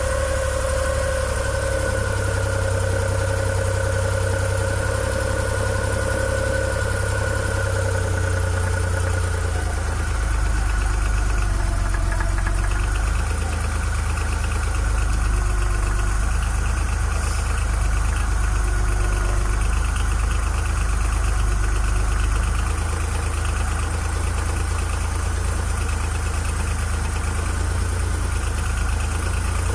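Suzuki F6A three-cylinder engine of a multicab idling steadily, fitted with a new vacuum diaphragm to cure an idle that kept rising and falling. The idle note shifts lower about ten seconds in and comes back after about twenty-two seconds.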